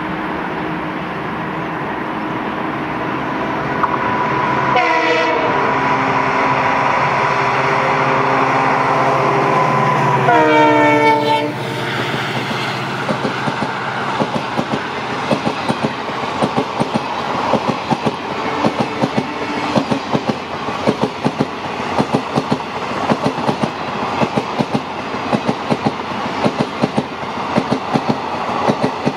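A WDP 4B locomotive's EMD two-stroke diesel engine works hard as it approaches, growing louder. There is a short horn blast about five seconds in, and a longer horn about eleven seconds in whose pitch drops as the locomotive passes. Then the passenger coaches roll by with a fast, even clickety-clack of wheels over rail joints.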